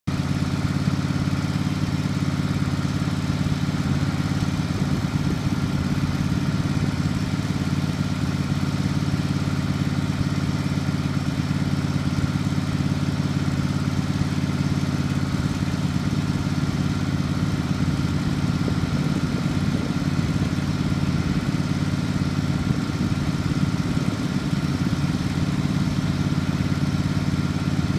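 Honda HF2620HT ride-on mower's V-twin engine running at a steady speed.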